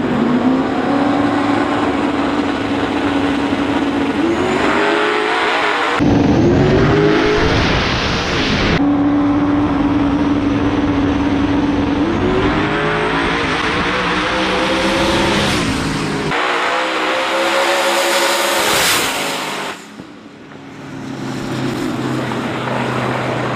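Drag-racing cars held at high revs on the line, then launching and accelerating hard, the engine pitch climbing and dropping with each gear change. The sound breaks off abruptly several times, and near the end it dips to a quieter engine.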